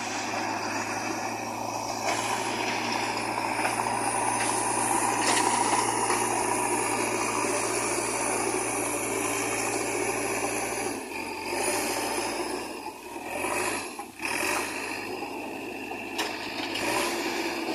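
JCB backhoe loader's diesel engine running with a rattle from the machine; the steady engine note shifts about two-thirds of the way through and the sound dips briefly a few times after that.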